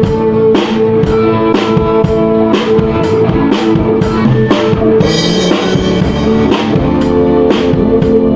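Live rock band playing an instrumental passage: drum kit keeping a steady beat of about two strokes a second under sustained electric guitar chords.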